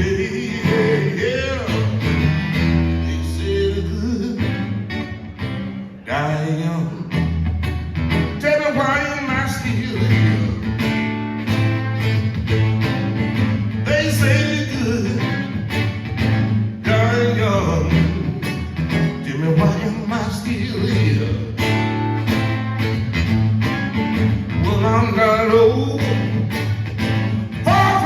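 Live blues band playing an instrumental passage: a lead guitar plays bending, sliding notes over a steady bass line, with a brief drop in the music about six seconds in.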